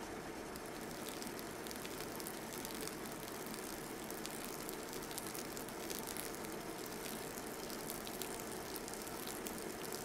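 Hot water poured in a thin stream onto a bed of ground coffee in a paper filter during a hand-drip pour-over: a faint, steady pouring with many fine crackling clicks as the water soaks into the grounds.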